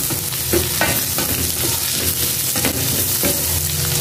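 Garlic and onions sizzling in hot oil in a frying pan as they sauté, with a wooden spatula stirring and scraping the pan a few times.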